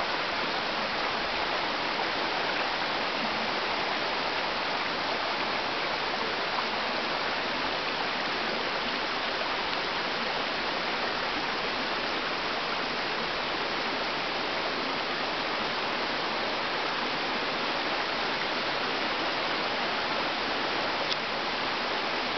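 Small waterfall of water running and dripping over moss, a steady even rush of water.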